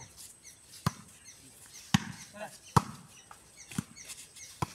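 A volleyball being struck by hand during a rally: five sharp slaps about a second apart as players bump, set and hit it, with a brief shout from a player in between.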